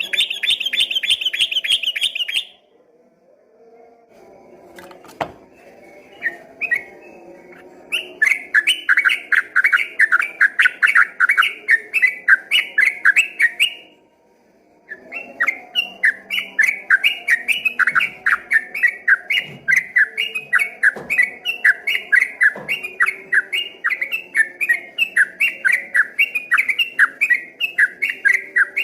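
Yellow-vented bulbul (trucukan) singing its fast 'ropel' song: long runs of rapidly repeated notes, several a second, breaking off about two seconds in and again briefly around the halfway point before running on.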